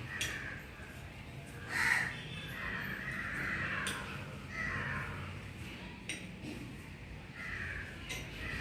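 Crows cawing, a series of separate harsh calls with the loudest about two seconds in, with a few sharp clicks in between.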